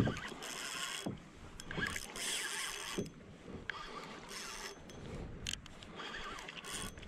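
Spinning reel being wound in short spells of a second or so while a lure is retrieved from a plastic sit-on-top kayak, with a few soft knocks and water lapping at the hull.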